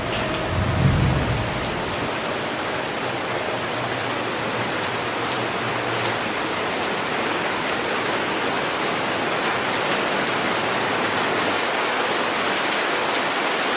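Steady heavy rain, with a low rumble of thunder about a second in. Faint steady outdoor warning-siren tones die away within the first few seconds.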